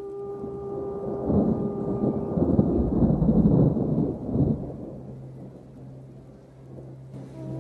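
A deep rumble swells from about a second in, is loudest around three seconds, and dies away by about five seconds, over a held note of background music. The music comes back in near the end.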